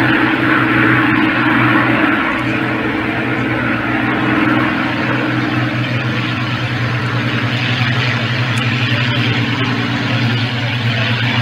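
Two Spitfires' V12 piston engines running at high power on a formation takeoff roll, a steady deep propeller drone.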